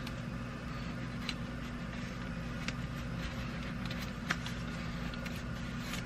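Steady low hum with a few faint light ticks as blue painter's tape is pressed along the edge of the plastic dash panel.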